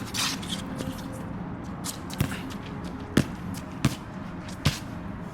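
A basketball bouncing on a hard court, about four sharp bounces roughly a second apart in the second half, like a slow dribble.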